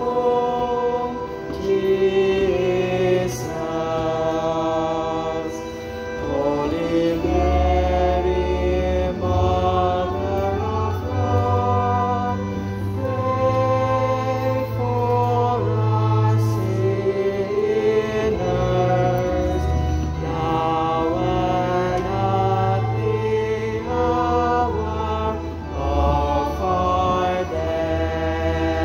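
Church organ playing a slow hymn in sustained chords, with long held bass notes from the pedals under the changing harmony.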